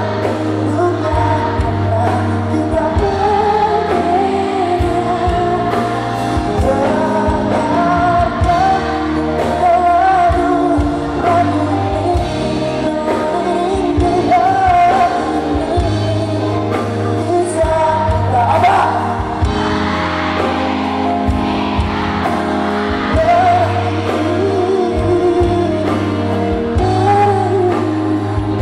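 A male pop singer singing live into a handheld microphone, backed by a live band with a steady bass line and drums.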